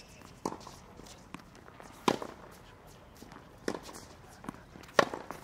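Tennis ball being struck back and forth in a rally: four sharp racket-on-ball pops about a second and a half apart, louder and softer in turn.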